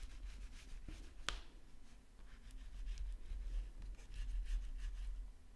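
White crayon strokes scratching and rubbing across drawing paper, faint and repeated, with one sharp tap about a second in.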